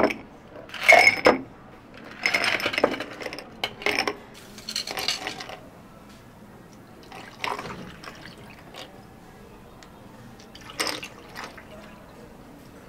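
Café drink preparation: liquid pouring and cups and glassware knocking, in a series of short separate bursts with pauses between them.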